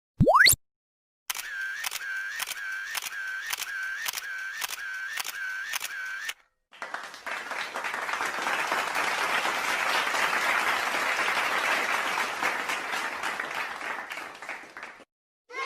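Sound-effect sequence: a brief rising whistle-like glide, then a camera shutter clicking about twice a second for about five seconds, then about eight seconds of applause that swells and fades.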